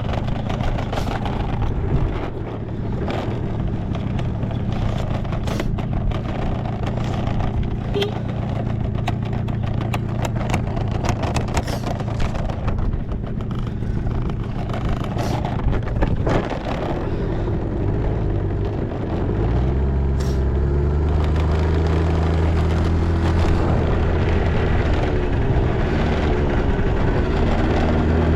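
Honda Live Dio AF34 scooter's 49 cc single-cylinder two-stroke engine idling steadily, with scattered light clicks. About two-thirds of the way through, the idle settles into a more even, slightly louder note.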